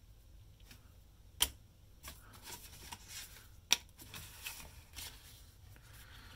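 Cardboard packaging and printed paper inserts being handled: faint rustling and sliding, with two sharp clicks, about a second and a half in and near the four-second mark.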